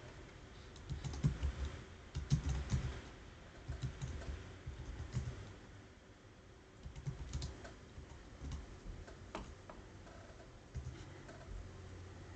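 Computer keyboard typing: a few short bursts of keystrokes separated by pauses, with some single key presses.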